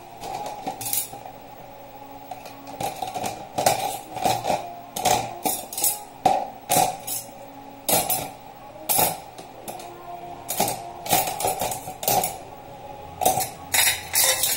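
Metal cutlery (spoons, forks and knives) clinking as pieces are picked up and dropped one by one into a plastic utensil holder, in quick irregular clinks, a few a second.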